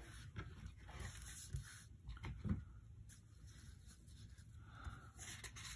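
Faint handling sounds: a few small clicks, taps and rustles as a plastic syringe is handled over a paper sheet.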